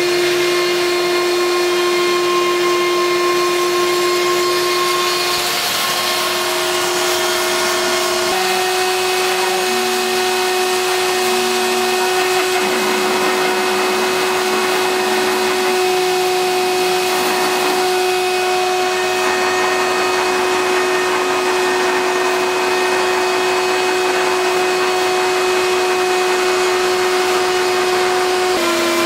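CNC milling machine cutting balsa and plywood: the router spindle's motor runs with a steady hum, and its tones step in pitch a few times as the cutting moves change, about six and eight seconds in and again near the end.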